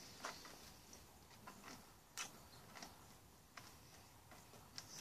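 Near silence with a few faint, scattered clicks of someone chewing a first piece of hard-coated Chiclets gum.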